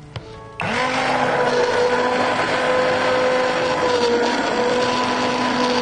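Hand-held immersion blender starts up about half a second in and runs steadily, its motor whining as it purées broccoli soup in a steel pot.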